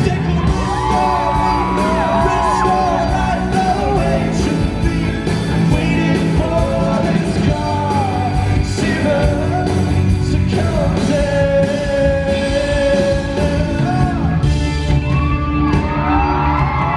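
Live pop-rock song performed in a large concert hall and recorded from the audience: a singer's voice over a full band accompaniment, with crowd yells mixed in. The singer holds one long note about two thirds of the way through.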